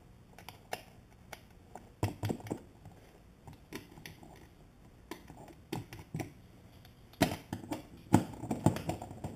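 Hands handling parts at a car's fuel tank access opening: scattered light clicks, taps and rustles, with a cluster of louder knocks about two seconds in and a denser run of them near the end.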